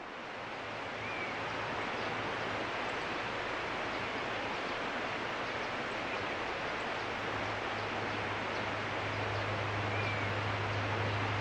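Steady outdoor rushing noise, with two short high chirps, one about a second in and one near the end. A low steady hum grows louder near the end.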